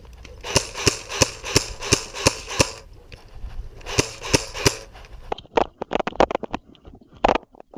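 Airsoft gun firing a quick string of sharp pops, about three a second, then a shorter string of three or four shots about four seconds in, followed by scattered sharper clicks.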